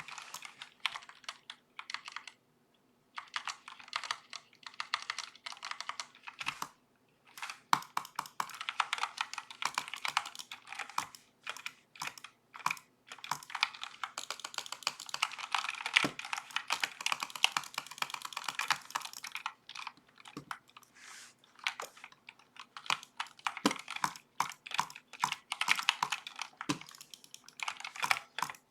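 Typing on a Redragon K552 mechanical keyboard, picked up by a webcam microphone: fast runs of key clicks with a few short pauses.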